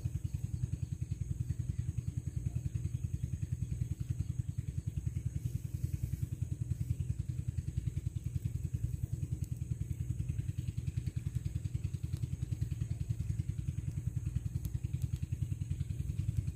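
A small engine running at a steady speed, its low, even firing beat unchanged throughout.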